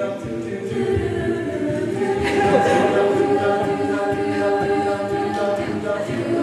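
A cappella group singing held chords, voices only, the sound growing fuller and slightly louder about two seconds in.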